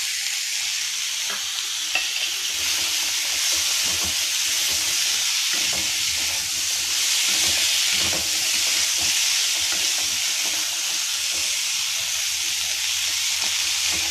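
Chopped raw water chestnut pieces sizzling in hot butter and cumin in a wok. A wooden spatula stirs and scrapes them around the pan, giving scattered short scrapes and knocks over the steady frying hiss.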